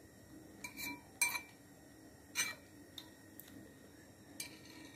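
Metal spoon clinking against a ceramic bowl while scooping, about seven light, ringing strikes spread over the few seconds, the loudest about a second in.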